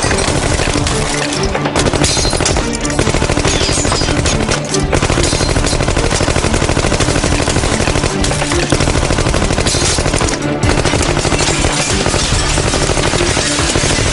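Sustained automatic gunfire: rapid shots in long volleys, broken by a few short pauses, with music underneath.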